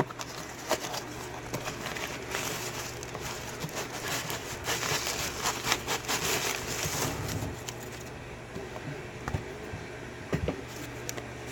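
Rustling and crinkling of packing material as a parcel is unpacked by hand, with many small clicks and handling knocks.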